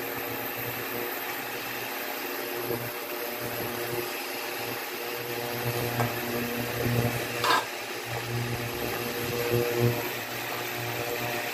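Cooking liquid bubbling and sizzling in a wok over a steady mechanical hum, with a slotted spatula scraping the pan and a few short knocks against the pan and plate, the sharpest about seven and a half seconds in.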